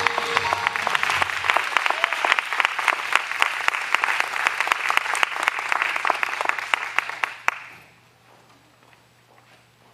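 Audience applause as the final notes of a song fade out at the start. The clapping dies away about seven and a half seconds in, leaving only faint room noise.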